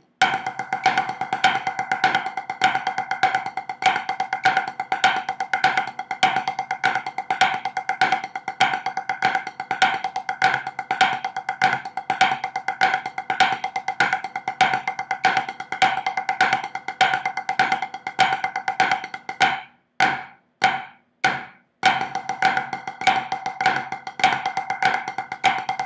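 Drumsticks on a practice pad playing flammed five-stroke paradiddles at 100 bpm: a fast, dense, even run of strokes. The playing breaks off about twenty seconds in, leaving a few separate clicks, then picks up again.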